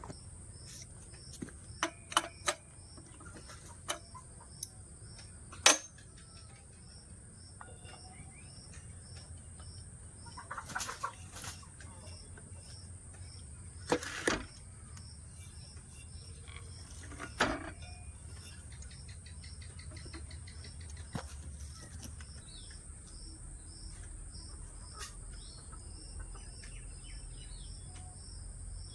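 Scattered sharp knocks and clicks of metal parts being handled, loudest about 6, 14 and 17 seconds in. Behind them run a steady high insect drone and a faint chirp about twice a second.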